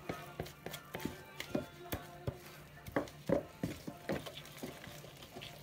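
A wooden stick stirring flour into soft dough in a plastic bowl, knocking irregularly against the bowl about two or three times a second. Background music plays under it.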